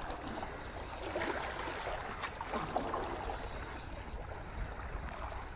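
Sea water lapping and sloshing close by, with a few faint splashes.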